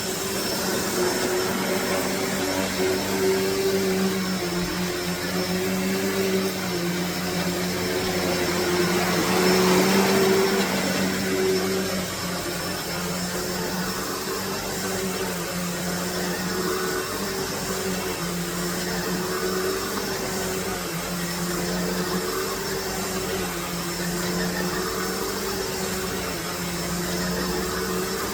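Hoover Deluxe Elite Rewind upright vacuum cleaner running with a steady motor hum and rushing air, its pitch wavering slightly as it vacuums. It grows a little louder about ten seconds in.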